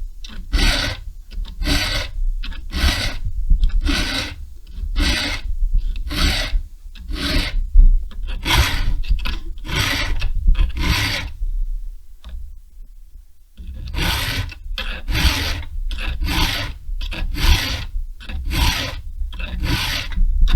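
Chainsaw file rasping across a chain's cutters in steady hand strokes, about two a second, with a short pause about twelve seconds in; the cutters are being filed to a shallower milling angle.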